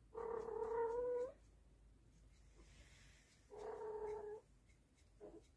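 Cat yowling during mating, the caterwaul of a female in heat being mounted by a tom. There are three drawn-out calls: a loud one over a second long that rises slightly at its end, another in the middle, and a short faint one near the end.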